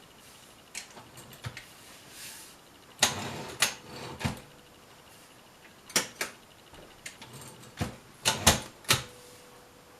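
All-metal Brother Opus 901 portable manual typewriter being worked by hand: a series of sharp, irregularly spaced clacks and clicks, with the loudest clusters near the middle and near the end.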